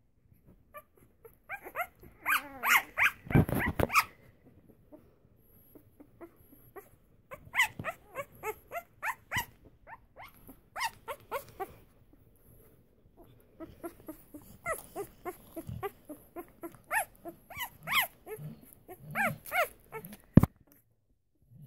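Five-day-old English Springer Spaniel puppies squeaking and whimpering as they nurse, in short calls that come in several bursts, the loudest cluster a few seconds in. A single sharp click near the end.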